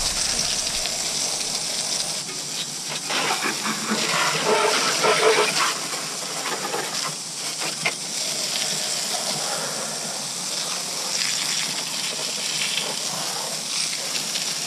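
Water jet spraying mud off an ATV: a steady hiss of spray with splashing that grows louder for a couple of seconds about three to five seconds in as the jet strikes nearer surfaces.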